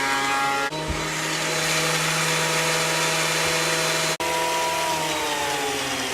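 Delta 22-540 benchtop thickness planer running while planing rough-cut ash boards: a steady motor whine under the rushing hiss of the cutterhead. The sound breaks off sharply twice for an instant, and the motor's pitch sinks near the end.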